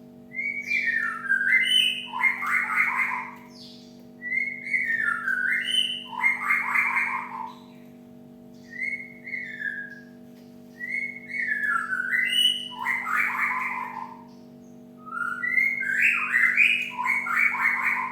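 Cinereous tit calling: five phrases, each a few short whistled notes running straight into a harsh, rattling chatter, repeated every three to four seconds. A steady low hum runs underneath.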